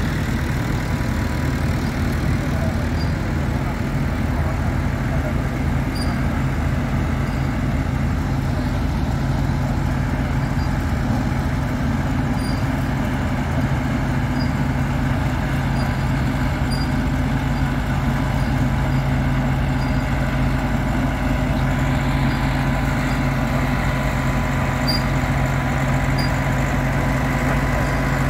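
An engine running steadily at an even speed, with a constant low hum.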